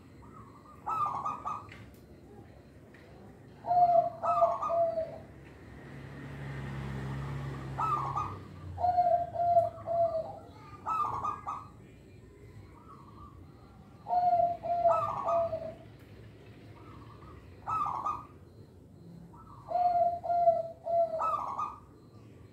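Zebra dove (perkutut) singing its cooing song. Each phrase is a rough higher note followed by a run of about three even, lower coos, and the phrases repeat every few seconds. A low hum swells and fades in the middle.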